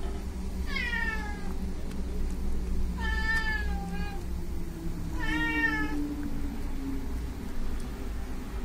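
Cat mewing three times during a kitten birth: short, high, thin calls, the first falling in pitch, over a steady low hum.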